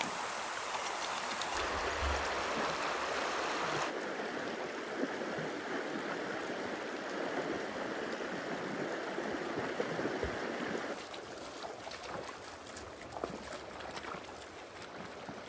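Shallow mountain river rushing over stones, a steady water noise. It becomes fuller while people and dogs wade through it, then drops to a quieter flow after a cut about 11 seconds in.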